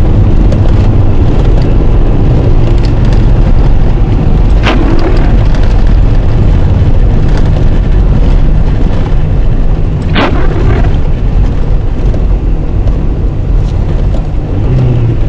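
Toyota Camry driving on a snow-covered road, heard from inside the cabin: a loud, steady low rumble of tyres and road noise. A short sharp sweep comes about every five and a half seconds, the windscreen wipers crossing the glass.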